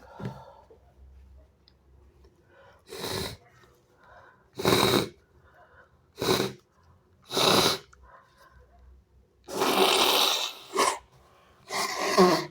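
A person sneezing repeatedly: a fit of six or seven wet sneezes about a second or two apart, the longest one about ten seconds in.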